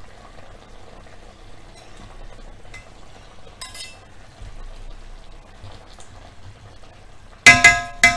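A pan of sauce simmering softly, with a faint clink about four seconds in. Near the end, two loud ringing metal clanks as a pot lid is picked up and knocked against cookware.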